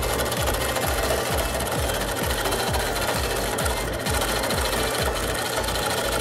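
Wood lathe spinning a wood-and-resin blank while a hand-held turning tool cuts it, a steady, continuous cutting noise as shavings peel off.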